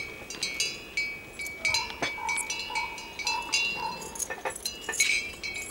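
Bells hung on the horses' necks clinking irregularly as the herd shifts about, with ringing metallic strikes.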